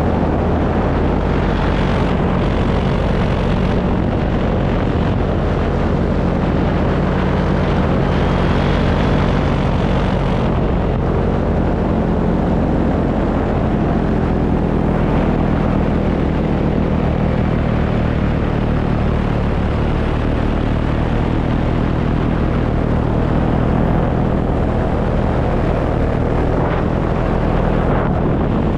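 Paramotor engine and propeller running at a steady pitch in flight.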